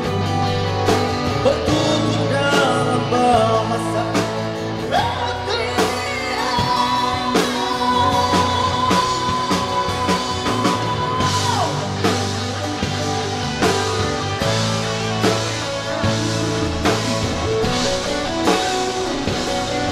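Live rock band playing: a male singer over electric and acoustic guitars, bass guitar and a drum kit. One note is held steady for about five seconds in the middle.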